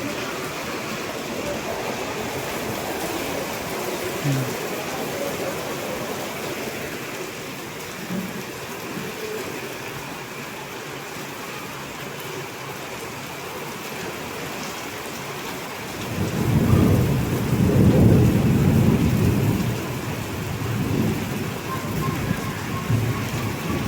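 Heavy rain falling steadily. About two-thirds of the way through, a deep rumble of thunder swells up and rolls on for several seconds, with smaller rumbles after it.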